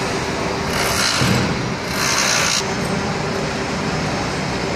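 Engine running steadily, with two short bursts of hissing about one and two seconds in.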